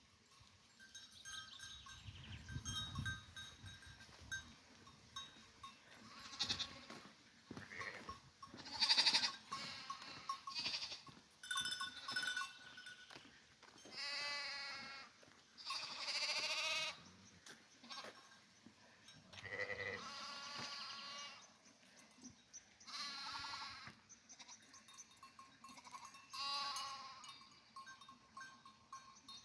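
A flock of sheep bleating: several long, wavering bleats of about a second each, more of them in the second half, with bells ringing faintly among the animals.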